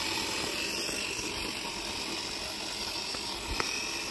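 Small toy RC car driving on pavement: a steady whirring hiss from its little electric motor and gears.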